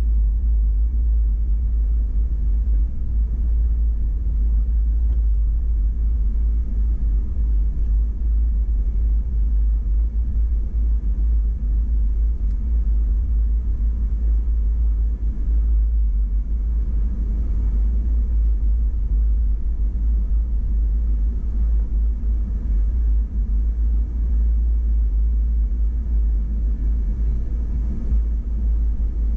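Steady low rumble of an off-road vehicle driving along a muddy dirt trail, picked up by a camera mounted on its hood.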